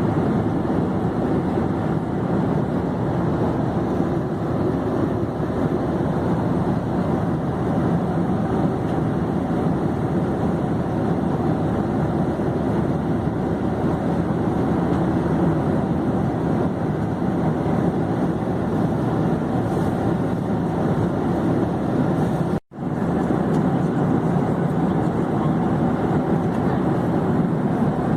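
Airplane in flight: a steady, even rumble of engine and air noise. It cuts out for a split second about three quarters of the way through, then resumes unchanged.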